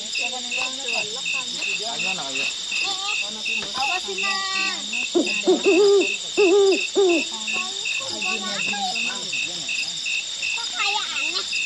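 Crickets and other night insects chirp in a steady, regular pulse about two and a half times a second over a continuous high insect drone. Indistinct human voices sound beneath them, loudest for a couple of seconds around the middle.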